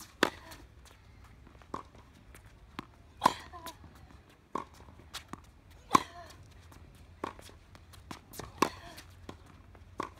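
Tennis ball struck by rackets and bouncing on a hard court during a baseline rally: sharp pops about once a second, with the loudest, nearby forehand hits about every three seconds.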